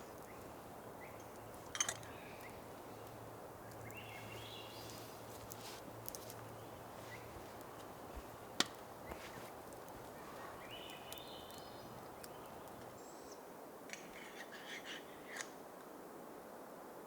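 Faint evening forest background with the owls' short rising calls, twice, about four and eleven seconds in, and a cluster of calls near the end. Occasional sharp crackling snaps from the burning campfire and wood stove come through, loudest about two and eight and a half seconds in.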